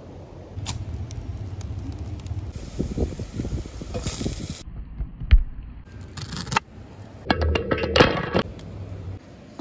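Cooking sounds in quick succession: a heavy thud about five seconds in as a lamb shank goes into a copper pot of chopped red onion, then a cluster of clicks and rustles near the end as handfuls of chopped onion are dropped and tossed.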